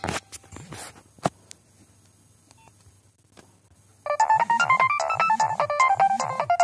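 Nokia 7210 ringtones: a few short clicks end one tone, then after a pause of about two and a half seconds the next ringtone starts, a fast electronic melody of short stepped notes over a pulsing low beat.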